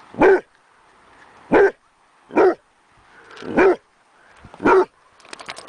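A dog barking five times in single short barks, spaced about a second apart but unevenly.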